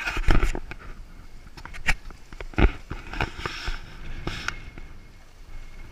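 Irregular splashing and sloshing of seawater close to the microphone, broken by sharp knocks and clicks at uneven intervals, the loudest near the start and around two and a half seconds in.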